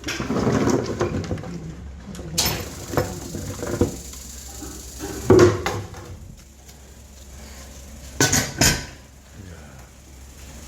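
Cooking pots and utensils clattering and knocking as they are handled, a series of sharp clanks, the loudest about five seconds in and two close together near the end.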